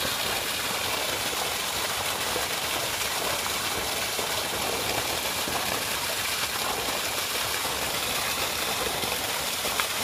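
Water gushing steadily from a wide pipe spout and splashing into a concrete basin below.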